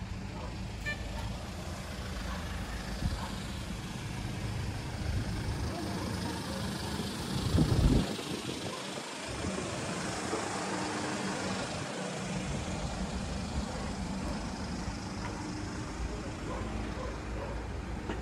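Street traffic: vehicle engines running and passing, with a brief loud low rumble just before eight seconds in.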